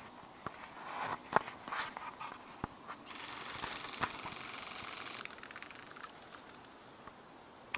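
Airsoft gun fire: a few sharp single clicks in the first three seconds, the loudest about a second and a half in, then a steady rapid rattle of about two seconds, a full-auto burst of suppressing fire, that stops suddenly a little past the five-second mark.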